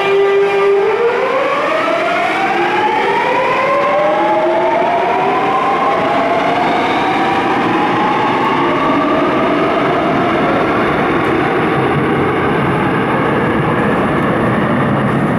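Busan subway electric train pulling out of the station: its traction motors hold a steady hum for about a second, then whine in several tones that rise steadily in pitch together as it accelerates away, over the rumble of the cars.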